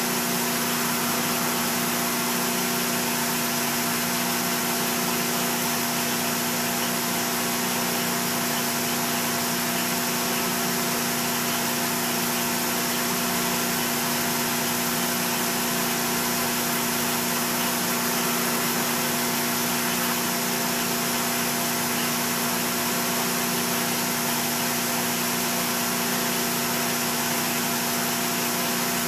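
Metal lathe running steadily while a ball-turning radius cutter with a round carbide insert cuts the end of a spinning metal bar. It makes an even mechanical hum with a constant tone and a hiss, unchanged throughout.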